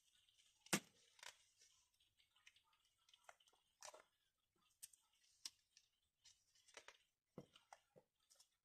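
Clear plastic sleeve pages of a display-book portfolio being handled and turned over: faint crinkles, rustles and light taps, with one sharper click about a second in.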